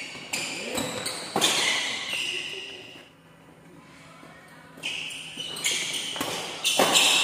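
Badminton doubles rally: rackets hitting the shuttlecock with sharp cracks, and players' shoes squeaking and shuffling on the court. The hits come early, pause for about two seconds in the middle, then resume several times in quick succession near the end.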